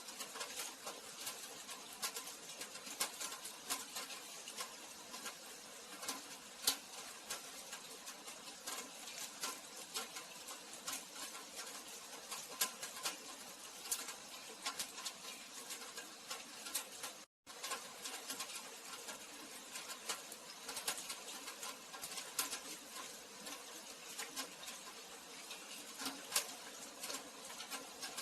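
Rain falling, a steady hiss with many irregular drips and patters clicking on top. The sound cuts out for an instant about 17 seconds in, then carries on.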